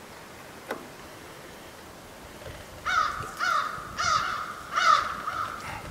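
A crow cawing about five times in quick succession, starting about halfway through. A single light click comes about a second in.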